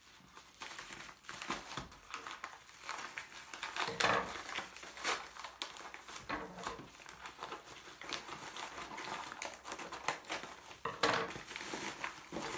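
A parcel being opened by hand: packaging crinkling and rustling, with irregular small clicks and knocks. The handling is louder about 4 seconds in and again near 11 seconds.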